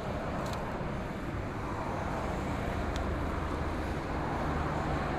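Steady outdoor rumble of traffic noise, with a low hum that grows slightly louder near the end as a distant EF66 electric locomotive and its container freight train approach.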